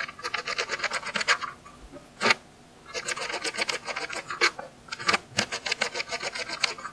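Knife rapidly dicing firm orange vegetable pieces on a plastic cutting board, with about eight quick cuts a second. The chopping comes in two runs with a short pause between them, and a few cuts land as louder knocks on the board.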